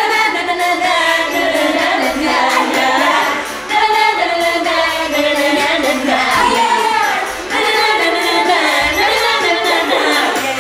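Several female voices singing a wordless "na na na na" refrain together.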